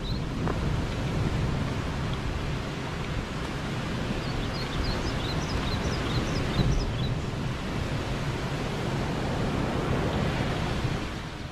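Steady ocean surf and wind noise, with a few faint high chirps near the middle.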